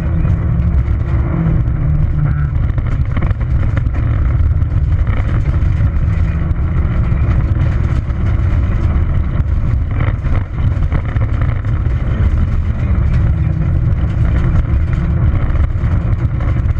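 Peugeot 206 XS rally car engine running under load, heard from inside the cabin, with steady tyre and gravel road noise and scattered small knocks.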